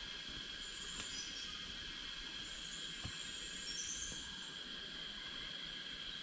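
Forest insect chorus: several insects droning steadily on high, constant tones, with a few short bird chirps over the top.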